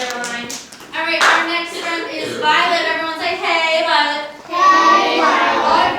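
A few claps about the first second, then children's voices singing, with long held notes.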